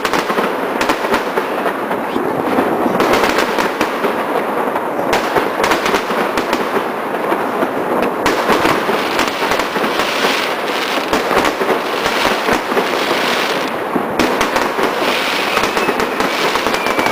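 Many aerial fireworks going off at once: a dense, unbroken barrage of bangs and crackling, with a whistle near the end.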